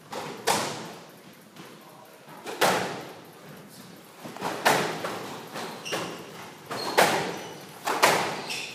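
Squash rally: the ball smacked by racquets and off the court walls, a sharp echoing crack every second or two, five loud hits with softer ones between.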